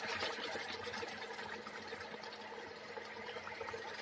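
Mustard fish curry simmering in a pan on an induction cooktop: a soft, steady bubbling and crackle, under a faint steady hum.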